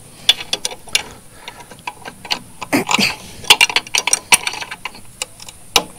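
Irregular metal clicks, clinks and short scrapes of a grease-gun coupler being worked loose from a mini excavator's track-tensioner grease fitting. The coupler is not a quick-release type and is stuck on the fitting.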